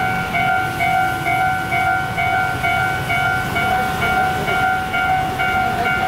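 Railway level-crossing warning bell ringing steadily at about two strokes a second, over a low rumble.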